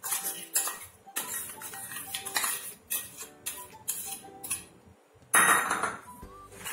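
Metal spoon scraping thick cream out of a steel bowl into a mixing bowl: a run of short scrapes and clinks, the loudest a longer scrape near the end, over soft background music.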